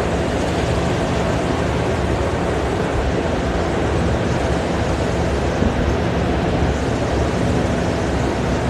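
Steady drone of heavy machinery during ship-to-ship bulk cargo loading: an even rushing noise with a few faint steady hums.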